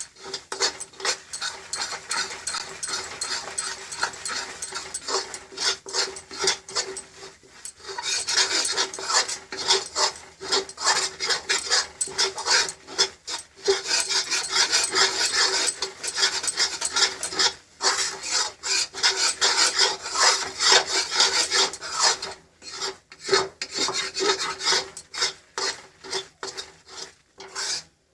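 Gram flour (besan) roasting in ghee in a kadhai, stirred and scraped around the pan in quick rasping strokes, with a few short pauses.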